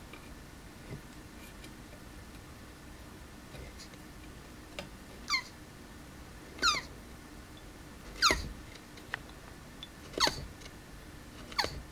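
Male Russian tortoise giving his mating call: five short, high-pitched squeaks, each sliding sharply down in pitch, about one every second and a half from about five seconds in.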